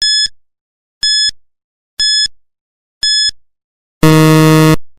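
Countdown timer sound effect: four short high-pitched beeps one second apart, then a longer, lower buzzer tone about four seconds in, the loudest of them, marking the end of the countdown.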